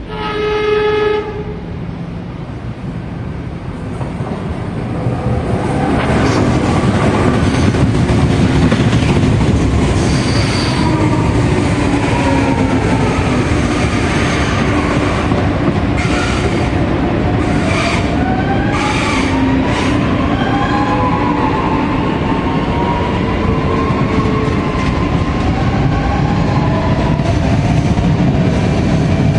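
A CPTM electric commuter train sounds a short horn blast about a second long, then its rumble builds as it approaches and runs past close by. From about halfway on, the wheels squeal in gliding tones against the rails.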